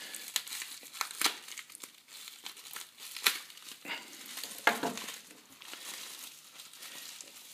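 Plastic bubble wrap crinkling and rustling as it is unwrapped by hand, with a few sharp, louder crackles scattered through.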